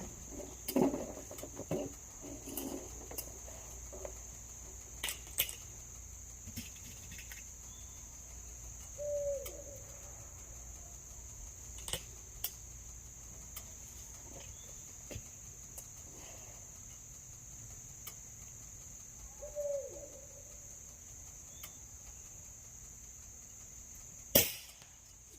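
Steady high chirring of crickets, with scattered small clicks and two short falling calls. About 24 seconds in, a single sharp crack: the shot of a Beeman R7 spring-piston air rifle.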